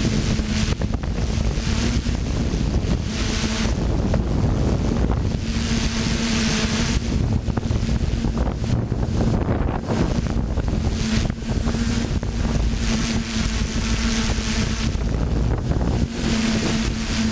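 FPV drone's motors and propellers humming at a steady pitch, heard from the drone's own camera, under loud rushing wind noise on the microphone that swells and fades.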